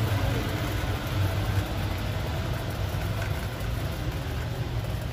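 Steady low hum and rumble of a grocery store's background noise, heard while a shopping cart is pushed along the aisle.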